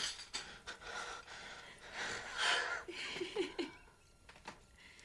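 A person's breathy gasps and sobbing breaths, with a few short voiced catches in the throat, as of someone overcome with emotion.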